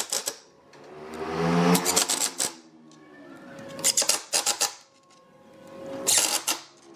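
Cordless Makita impact driver driving screws into pine. The motor whines as it speeds up, then the hammer mechanism rattles in short bursts, three times.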